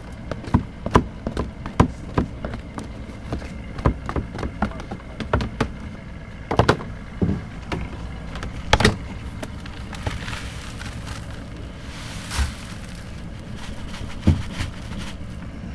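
Irregular knocks, taps and scrapes of chum buckets, a bait tray and a wooden stick being handled on a fibreglass boat deck, with a short stretch of hissing about ten seconds in.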